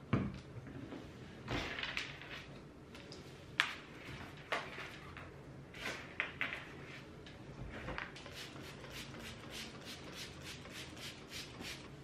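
Cleaning sounds on a wooden desk: several knocks and clunks as a spray bottle and other items are handled and set down, then a quick run of short swishes, about four a second, as a cloth rubs over the desktop.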